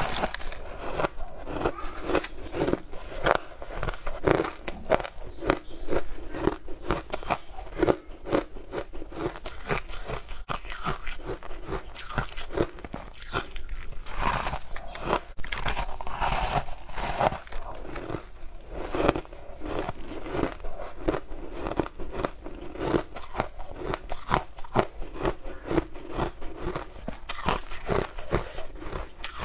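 Biting and chewing chunks of blue frozen ice: a dense, continuous run of crisp crunches and crackles.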